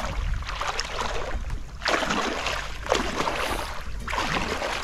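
Water swishing in regular strokes, about one a second, over a steady wind rumble on the microphone.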